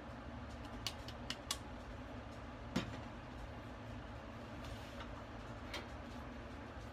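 A few short clicks and knocks of kitchenware being handled on a stainless steel counter, the loudest about three seconds in as a ceramic bowl is set down, then a lighter knock near the end as the saucepan is lifted. A low steady hum runs underneath.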